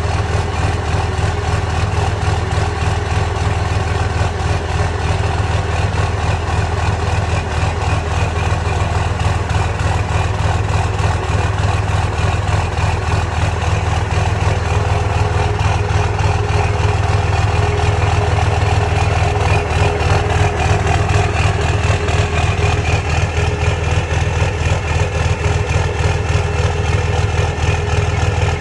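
2006 Cummins 5.9-litre inline-six turbo diesel idling with diesel clatter and a surging, loping idle, swelling a little louder in the middle. This is a sign of an intermittent misfire without smoke, which the owner suspects could be bad injectors.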